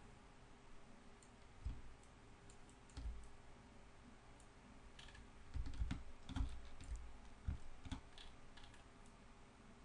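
Scattered clicks and light knocks from a computer mouse and keyboard being worked at a desk, bunched most closely about five to six and a half seconds in, over a faint steady hum.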